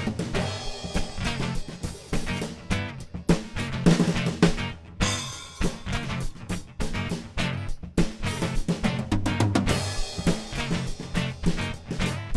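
Instrumental break in a live band's song: percussion keeps a steady beat of drum hits over the accompanying instruments, with no singing.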